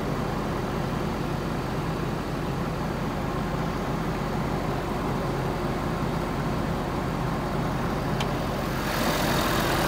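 Ford F-350 Super Duty's 6.7 L Power Stroke diesel V8 idling steadily and very quietly. A single click comes about eight seconds in, and the engine sounds louder and brighter near the end.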